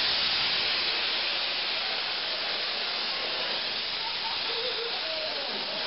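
High-pressure gas cylinder venting at full flow in a loud, steady hiss, its gas jet used as thrust to push the person holding it. The hiss eases very slightly as the cylinder empties.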